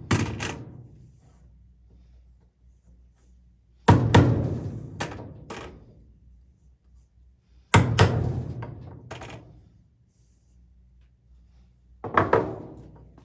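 A hammer striking a chisel to cut a recess into an MDF disc: groups of a few sharp blows about every four seconds, each group dying away quickly.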